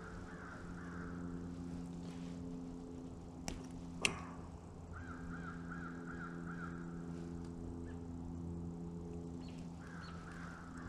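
Wire strippers snipping and pulling insulation off a small wire, two sharp clicks about three and a half and four seconds in, over a steady low hum and faint wavering higher sounds that come and go.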